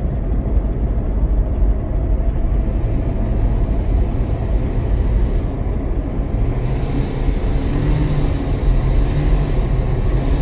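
Road and drivetrain noise inside a Toyota Prius cabin while driving, a steady low rumble. About two-thirds of the way in, a low droning hum rises in and holds for a few seconds.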